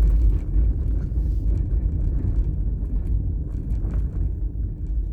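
Steady low rumble of a car running, heard from inside the cabin, easing slightly toward the end.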